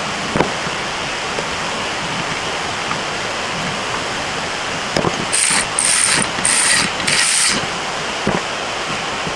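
Four quick bursts of ratchet clicking from a hand ratchet wrench, over a steady hiss, with a few light knocks of tools on metal.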